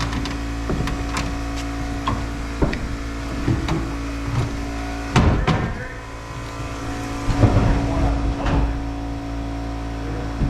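An engine runs steadily throughout. Over it come irregular knocks and clatter, loudest about five seconds in and again about two to three seconds later.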